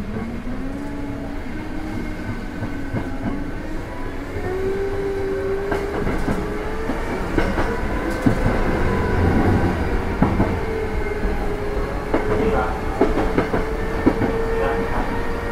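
Sanyo 5000 series train's Mitsubishi MB-3020 traction motors whining under power, heard from inside the motor car: the whine rises in pitch over the first four seconds, then holds steady as the train runs on. Wheels click over rail joints.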